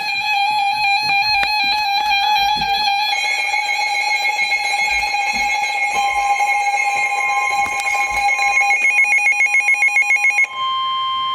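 Electronic musical tones play for about ten seconds, pulsing rapidly near the end. They then give way to a single steady, loud tone: the 1050 Hz NOAA Weather Radio warning alarm tone that precedes the spoken severe thunderstorm warning.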